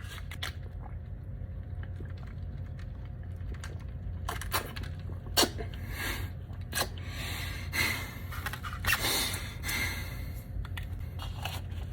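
Person sipping and swallowing sweet tea, with a few short mouth noises and breaths between about 4 and 10 seconds in, over a steady low hum.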